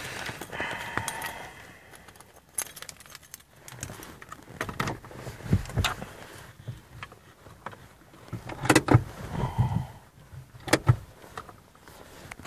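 Keys jangling, with scattered clicks and knocks and a cluster of louder knocks about two-thirds of the way through, inside a car's cabin.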